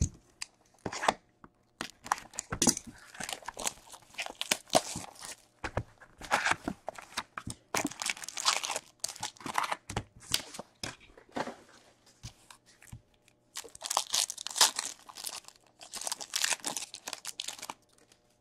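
Cardboard box of Upper Deck Ice hockey cards torn open and its shiny card packs ripped open and handled: irregular bursts of tearing and crinkling of cardboard and wrapper, stopping shortly before the end.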